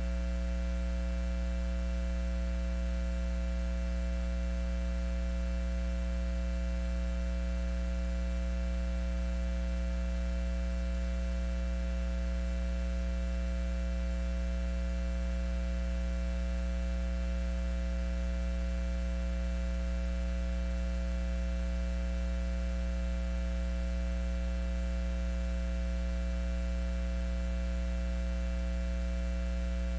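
Steady electrical mains hum: a low, unchanging buzz with a stack of higher overtones, and no other sound.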